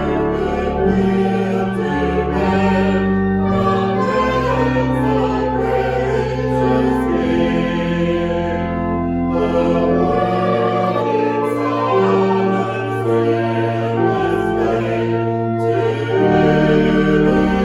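A choir singing a slow piece in long held chords over low bass notes.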